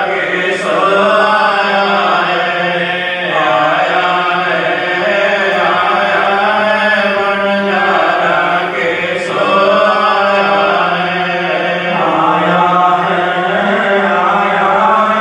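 Devotional chanting of an evening aarti hymn: a sung, melodic line that runs on without a break over a steady drone.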